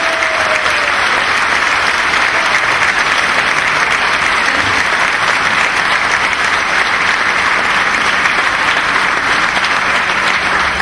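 A large crowd applauding steadily and without a break.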